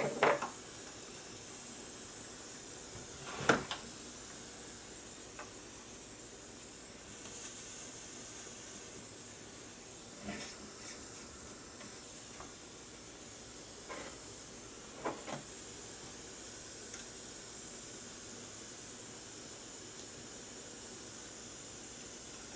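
A few light knocks and clicks of wires and small parts being handled on a hexacopter frame, over a steady hiss. The sharpest knocks come right at the start and about three and a half seconds in, with fainter ones around ten and fifteen seconds.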